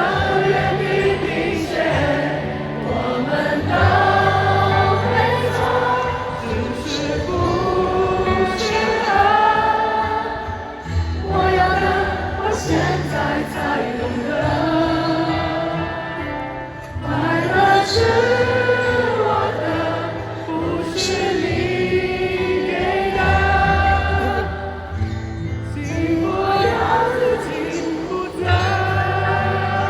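Live concert music with sustained choir-like singing in long, gliding phrases over steady low bass notes.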